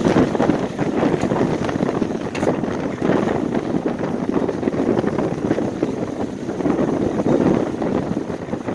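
Strong wind buffeting the microphone: a dense, gusting rumble that swells and eases every second or two, with no clear calls standing out.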